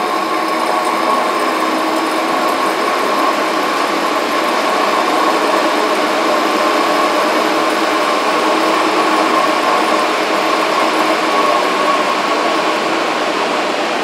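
Steady hum and whine of a Hengli HSA1505 belt furnace running: its VFD-driven belt-drive gear motor at speed, with the cooling blowers running under it. The motor is loud enough to cover the fans.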